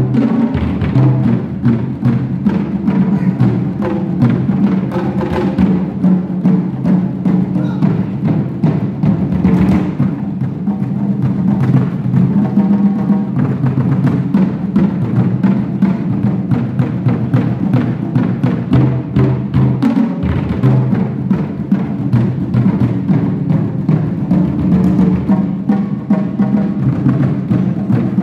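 Live ensemble of Chinese drums, large barrel drums and smaller drums on stands, played together in dense, continuous drumming.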